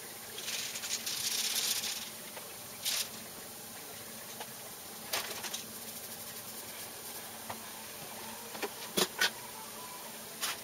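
An aerosol spray can hissing against bare car body panel for about a second and a half near the start, then a few sharp clicks and knocks from handling the can and metal parts, two of them close together near the end.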